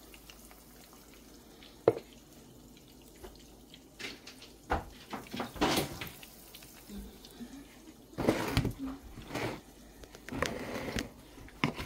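Water running in short bursts, as from a kitchen tap, with a sharp click about two seconds in.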